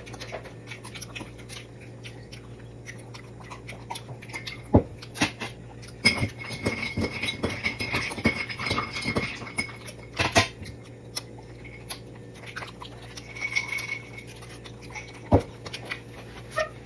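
Scattered clicks and knocks of spoon, eggshell and ceramic plate while balut eggs are eaten. There are three sharper knocks, about five, ten and fifteen seconds in, and a busier run of clicking between the first two.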